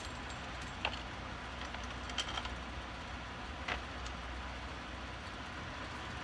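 A wide wooden kiln door swung on its hinges, giving three short clicks or knocks about a second, two seconds and three and a half seconds in, over the steady hum of the kiln's exhaust fans.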